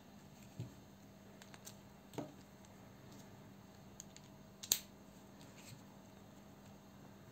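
Scattered small clicks and light knocks from handling metal tools: a bit being pulled from and fitted into a ratchet screwdriver's bit holder, and a small folding knife being picked up and turned. The sharpest click comes about four and a half seconds in, over a faint steady hum.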